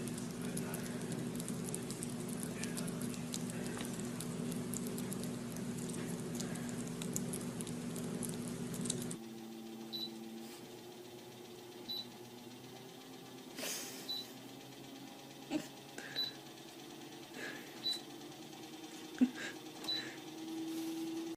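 A treadmill running, its motor humming steadily, with a short high beep about every two seconds and a few sharp knocks. Before that comes a steady low hum with faint scratchy ticks.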